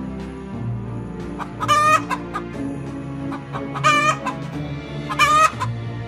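Three short, loud chicken calls, spaced about a second and a half to two seconds apart, over soft background music.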